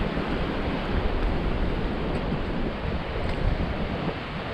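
Wind buffeting the microphone in an unsteady low rumble, over the steady wash of sea surf.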